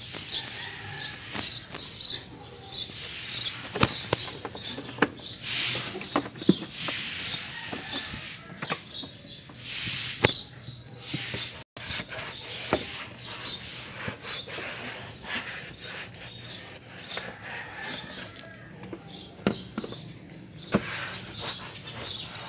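Microfiber cloth wiping and rubbing over plastic engine covers and a ribbed rubber intake hose, in short rustling strokes, with scattered sharp clicks and knocks of hand and cloth against the plastic.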